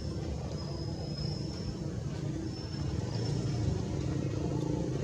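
A motor engine running steadily, getting a little louder in the second half, with a thin high whistle coming and going above it.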